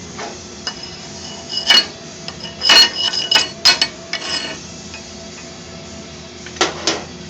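Thick plasma-cut steel parts knocking and clinking against each other and against metal as they are handled, a series of sharp metallic knocks, several of them ringing briefly.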